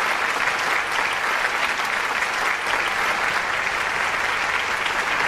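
Audience applauding steadily, a dense even clapping from a large crowd.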